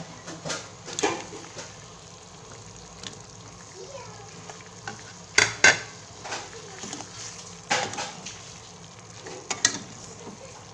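Perforated metal ladle stirring in an aluminium pot, scraping and knocking against its sides in irregular clicks, with two loud knocks about halfway through, over the steady low hiss of a simmering coconut-milk curry as fried tofu is stirred in.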